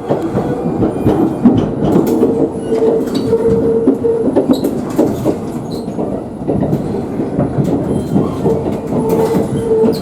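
Kintetsu limited express train running over rail joints and points, with a stream of clicks and knocks and a squeal that comes in twice, once about two seconds in and again near the end. It is heard from inside the carriage as the train approaches a station.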